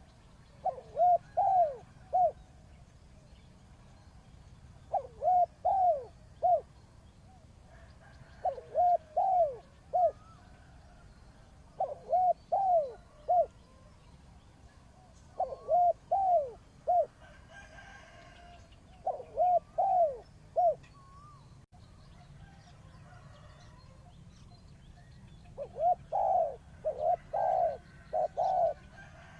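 Spotted dove cooing its repeated phrase of about four rounded notes, "coo-coo-croo", once every three to four seconds. After a longer pause near the end, a louder phrase with more notes follows. A smaller bird chirps faintly about halfway through.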